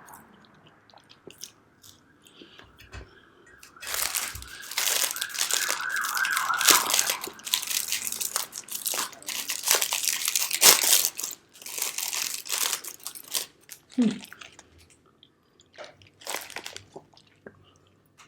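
Plastic wrapper of a packaged marshmallow pie crinkling loudly for about ten seconds as it is torn open, after a few seconds of quiet chewing. A single knock comes near the end.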